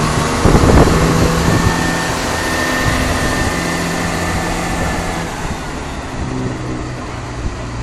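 CrossCountry diesel multiple unit moving off along the platform line, its underfloor diesel engines running with a steady multi-tone drone that grows fainter toward the end.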